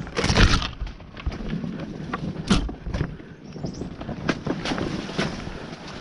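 Enduro dirt bike ridden over a rough, rutted trail: the engine runs low under repeated irregular knocks and clatter from the bike jolting over ruts and rocks, with a loud rush of noise near the start.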